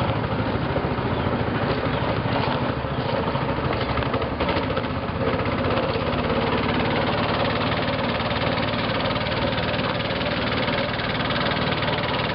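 Small raft's engine running steadily, a constant motor drone.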